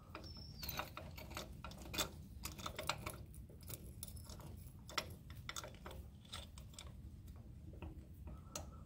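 Faint, irregular metallic clicks and scrapes as the jaws of a pilot bearing puller are worked by hand into a pilot bearing in the crankshaft flange, until they catch the bearing's inner race.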